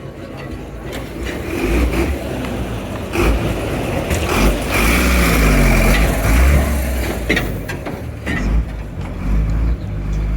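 Motor vehicle running close by, engine and road noise building over the first couple of seconds, loudest around the middle with a wavering engine note, then easing off near the end.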